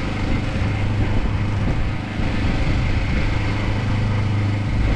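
An engine running steadily on the boat, a constant low drone.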